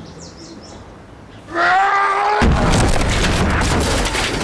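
Faint high chirps, then a held, slightly rising pitched tone, then about two and a half seconds in a sudden loud boom that carries on as a loud, noisy rumble.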